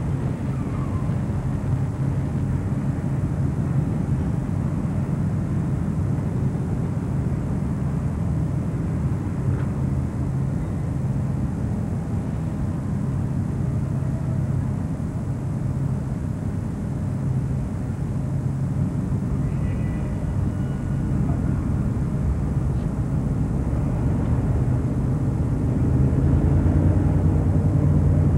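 EMD SW1200 switcher locomotive's diesel engine running with a steady low rumble, growing louder near the end.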